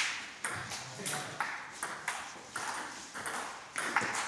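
Table tennis rally: the celluloid ball clicking off rubber-faced bats and bouncing on the table, a quick run of sharp clicks about three a second.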